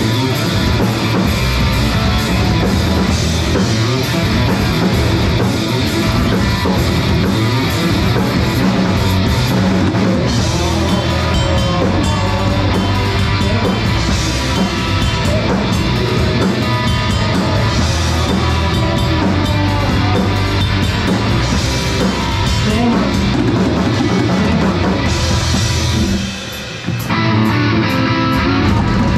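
Live rock band playing loudly with electric guitar and drum kit, with a short break near the end before the band comes back in.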